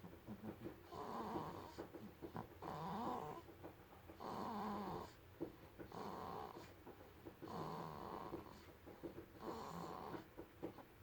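Sleeping baby about a hundred days old snoring, with six soft snoring breaths spaced every one and a half to two seconds.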